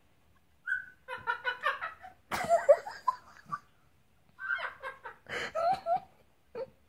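African grey parrot chattering in short bursts of voice-like and laugh-like sounds, with a short whistled note just before the first burst.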